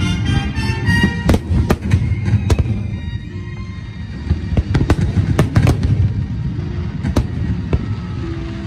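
Aerial fireworks display: shells bursting in quick, irregular succession over a continuous low rumble, easing off briefly about three seconds in.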